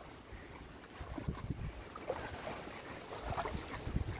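Rubber boots wading through floodwater: a series of irregular sloshing splashes, one with each step, starting about a second in.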